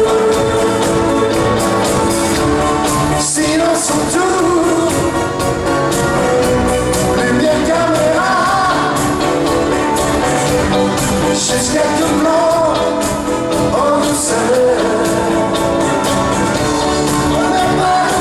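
Live pop band playing a ballad with a sung melody over it, loud and steady throughout.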